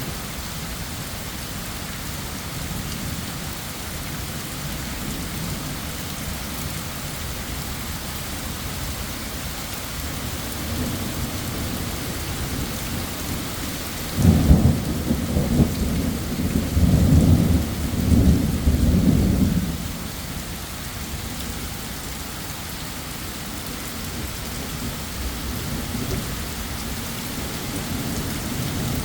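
Thunderstorm: steady rain falling throughout, with a roll of thunder about halfway through that rumbles low and loud for some six seconds, then fades back into the rain.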